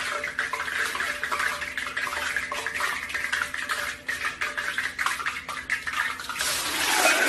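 Hot frying oil crackling and popping in a lidded pot over a faint steady hum. About six seconds in, french fries drop into the oil and it breaks into a loud sizzle that keeps growing.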